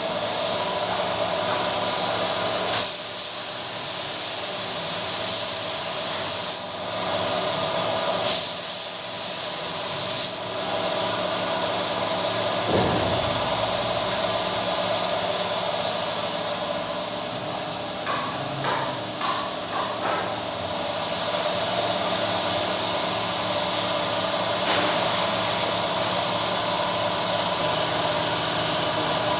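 Compressed-air spray gun spraying a top coat of lacquer onto a wooden door, hissing in two bursts of about four and two seconds, over the steady hum of the air compressor.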